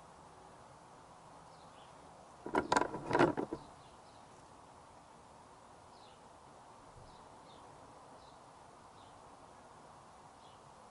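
A brief clatter of several quick knocks over about a second, from a trolley jack being let down under a motorcycle's front wheel. Birds chirp faintly now and then.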